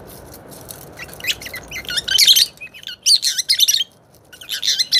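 Pet lovebirds in a wire cage chattering in bursts of loud, high-pitched chirps, starting about a second in.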